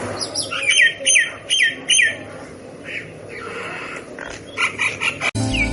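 Myna calling: a run of short, high, falling whistled notes, about five in the first two seconds, then harsher chattering calls. Near the end the calls cut off suddenly and a low hum follows.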